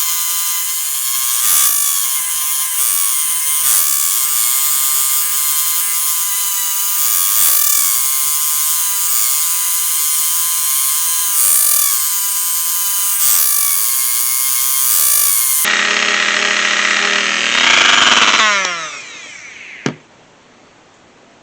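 Rotary tool spinning a burnishing bit on dampened leather edges: a high whine whose pitch dips briefly every second or two as the bit is pressed to the leather. Near the end the tool is switched off and winds down with a falling whine, followed by a single click.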